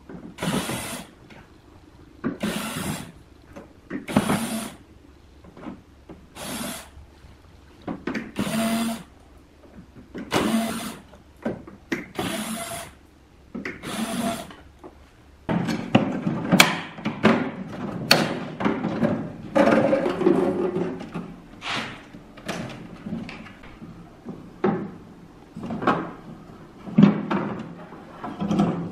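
A cordless drill-driver running in short bursts, about eight of them roughly two seconds apart, backing screws out of a plastic appliance housing. About halfway through this gives way to irregular knocks and clatter of plastic parts being handled and pulled apart.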